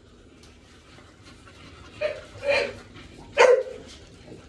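A dog barking three times in quick succession, starting about halfway in, the last bark the loudest.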